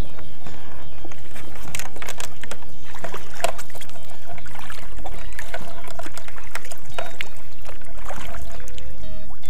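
Double-bladed kayak paddle stroking through pond water: splashes and drips from the blades, with scattered sharp knocks and clatter.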